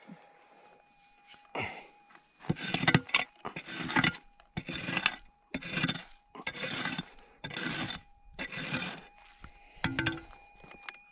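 Long-handled pick scraping and chipping into hard, stony dirt to dig out a metal detector target. There are about ten gritty strokes, roughly one a second, beginning about one and a half seconds in.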